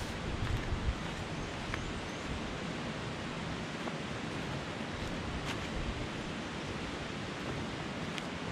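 Hikers' footsteps on a trail of dry leaves and twigs, a few faint crunching steps over a steady rushing outdoor background.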